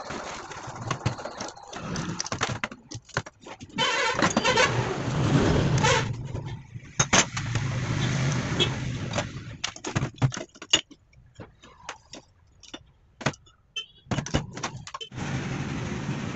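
Metal parts of a Tata Super Ace starter motor clinking and knocking as it is dismantled by hand: solenoid, end housing and armature lifted apart and set on the bench. A low rumble runs in the background, loudest about four to six seconds in.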